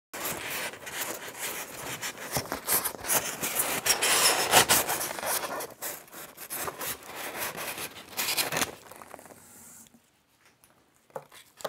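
Styrofoam packing peanuts and a foam packing sheet rubbing and rustling against each other and the cardboard as they are scooped and lifted out of a box: a dense, crackly scrabble that stops about nine seconds in.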